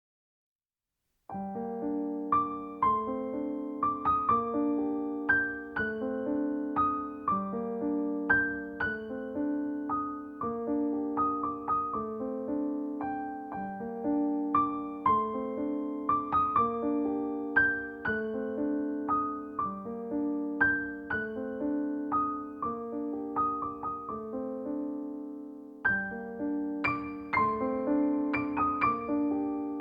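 Background piano music: a gentle repeating pattern of struck notes that starts about a second and a half in, thins briefly a few seconds before the end, and then resumes.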